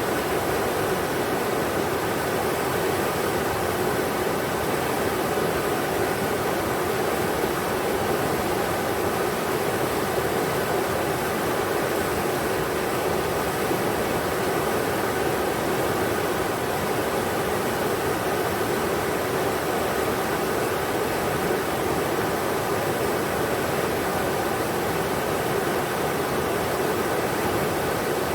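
River water rushing steadily over rocks, an even unbroken rush strongest in the middle range.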